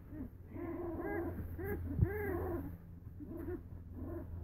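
Young puppies whining, a string of short cries that each rise and fall in pitch. A single sharp knock about two seconds in.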